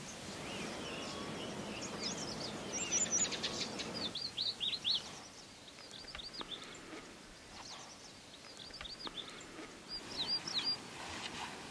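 Small birds calling: many short, high chirps and quick whistled notes, several birds at once, over a low rushing background that drops away about four seconds in.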